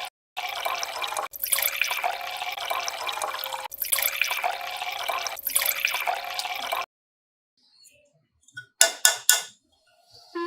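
Running water, heard in several joined stretches, stopping about seven seconds in. It is followed by three short sharp knocks about two seconds later.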